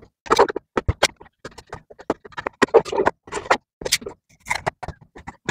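Hands opening a small blind-box package: the packaging crinkles and clicks in quick, irregular bursts.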